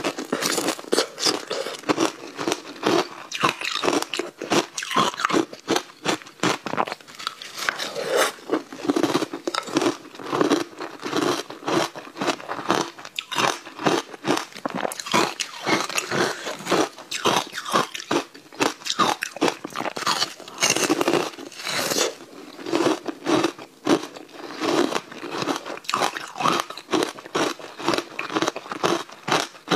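Frozen ice slabs being bitten and chewed: a dense, irregular run of sharp crunches and cracks, several a second.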